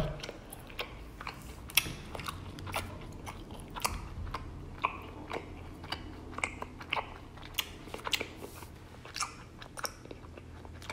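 Soft, irregular wet clicks and smacks of raw honeycomb being eaten: the waxy comb chewed and the honey-coated comb pulled at with sticky fingers.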